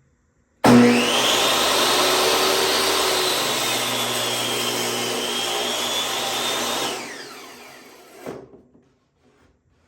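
Electric saw running at full speed with a high motor whine, ripping warped cherry that pinches the blade. It is switched off near the end and spins down.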